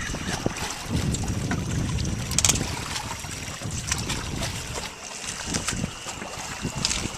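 Wind buffeting the microphone on an open boat as a low, uneven rumble, with scattered small clicks and knocks.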